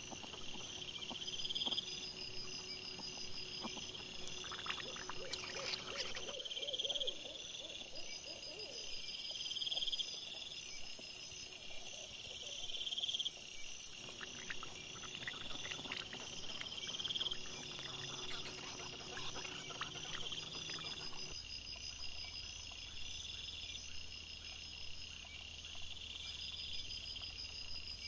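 Crickets chirping in steady, evenly repeating trills, with scattered soft crunching and rustling as wild boars and piglets root and feed on the ground. The background shifts abruptly a few times where separate trail-camera clips are joined.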